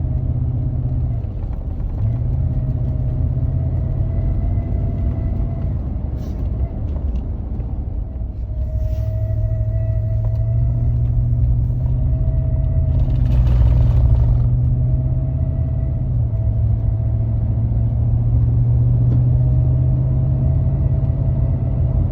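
2015 Ford F-150 engine running with a steady rumble while a thin whistle comes and goes every few seconds above it, the squeal the owner puts down to a bad water pump. A brief rush of noise comes about two-thirds of the way through.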